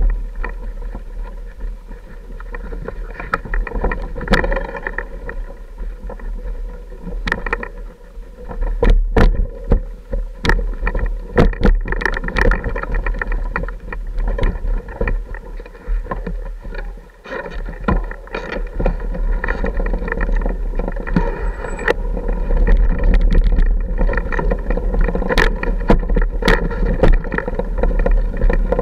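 Off-road motorcycle engine running steadily at low speed over a rough, rocky trail, with frequent sharp knocks and clatter as the bike jolts over rocks.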